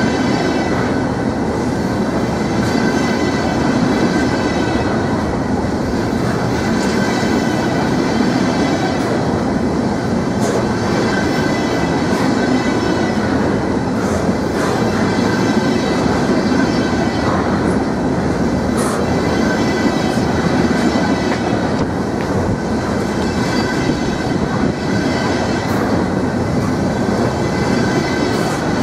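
Freight train flatcars loaded with wind turbine blades rolling past close by: a steady rumble of steel wheels on rail, with a thin, steady wheel squeal and a few sharp clicks.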